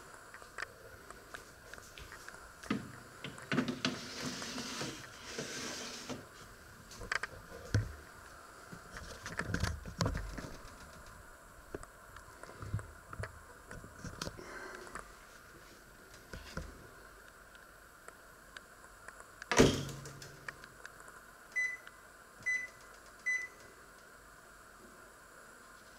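Clatter of a metal grill tray being handled and slid into a Panasonic microwave oven, then a single loud thump as the oven door is shut. Three short beeps follow from the oven's control panel as the cooking time is set.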